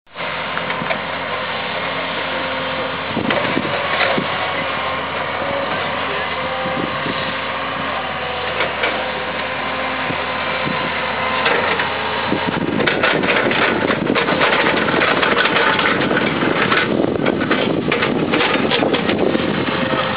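Diesel engine of a Kobelco hydraulic excavator running while it digs. It grows louder and rougher from about twelve seconds in, with rattling and knocking.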